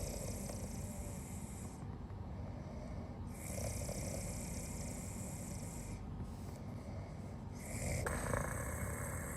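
Soft, rhythmic snoring: slow, even breaths with a hissy rasp, repeating about every four and a half seconds, two full cycles.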